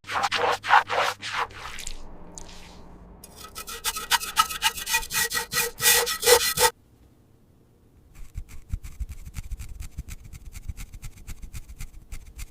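Rasping, rubbing strokes against a surface in three runs, the last a fast, even series of about seven strokes a second.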